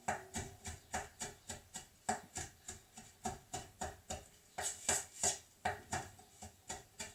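Knife chopping fresh parsley: a steady run of quick taps, about three to four a second.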